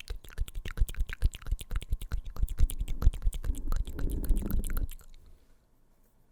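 Fingertips tapping rapidly on a microphone, ASMR 'typing', a fast run of close-up thumping clicks that stops about five seconds in.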